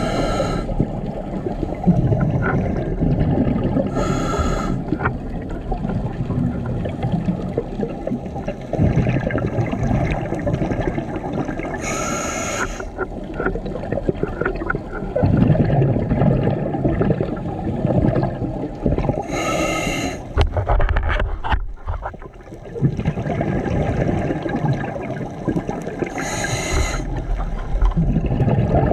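Scuba diver breathing through a regulator underwater: four short hissing inhales, about seven to eight seconds apart, with the rumble and gurgle of exhaled bubbles between them.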